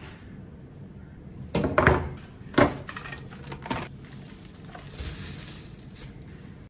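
Groceries being unpacked: a few sharp knocks and thuds as packages are set down on a kitchen countertop, the loudest about two and a half seconds in, then plastic shopping bags crinkling and rustling.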